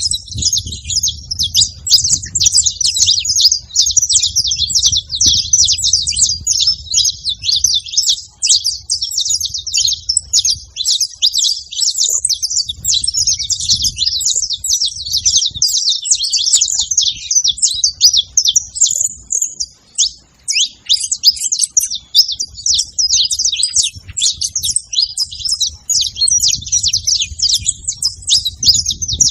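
A flock of saffron finches (canário-da-terra) singing and chirping all at once: a dense, unbroken chatter of rapid, overlapping high notes, thinning briefly past the middle.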